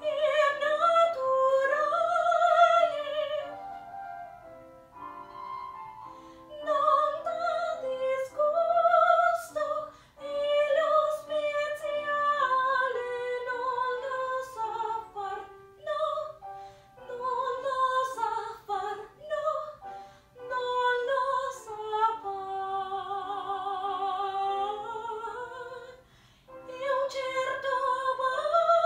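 A woman singing solo in a classical, operatic style, long held notes with wide vibrato, in several phrases with brief breaths between them.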